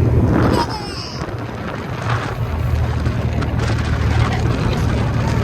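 Wind buffeting the microphone over a steady low rumble, with a brief voice in the first second.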